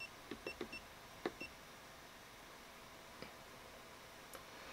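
FNIRSI smart multimeter powering on: about four short, high beeps in the first second and a half as its button is pressed, with a few light clicks afterwards.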